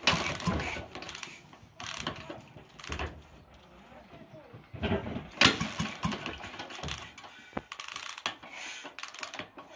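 Single-cylinder Sturmey-Archer engine being kicked over by its kick-start, several times. Each kick gives a short burst of mechanical churning, and the engine never settles into steady running.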